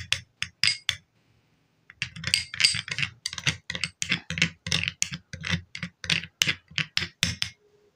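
A metal spoon stirring a thick white paste in a small ceramic bowl, clicking and tapping against the bowl about four times a second, with a pause of about a second near the start.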